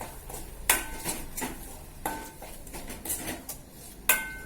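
A metal utensil stirring and scraping egg and greens in a cooking pan, with small clicks against the pan. Three louder strikes ring briefly, about a second apart at first and then near the end.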